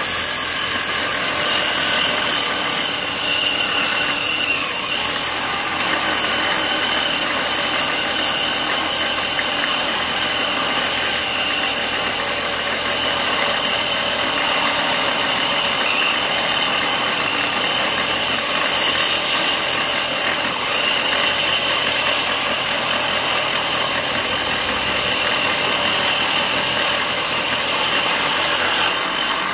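Homemade table saw driven by a salvaged water-pump motor, running steadily while a wooden board is fed through the blade.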